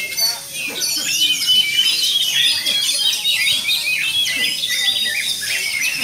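Many caged songbirds singing at once: a dense, overlapping chorus of rapid chirps, whistles and trills that goes on without a break.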